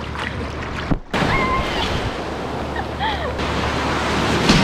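Sea surf washing and churning in shallow water at the shoreline, with a wave breaking close by near the end.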